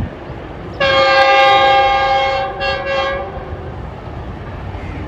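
Pakistan Railways diesel locomotive sounding its multi-tone air horn as it approaches: one long blast starting about a second in, then a shorter one right after, over the low rumble of the oncoming train.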